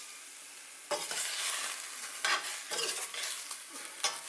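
A utensil stirring and scraping through pickled bitter melon in a pot of just-boiled vinegar, a stroke about every half second starting about a second in, over a steady sizzling hiss from the hot liquid.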